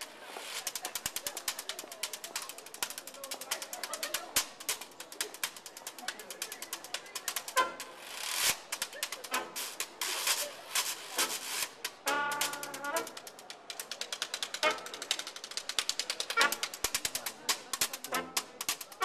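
Rapid, irregular clicking and rattling taps on a washboard played by hand. A brief pitched note sounds about twelve seconds in.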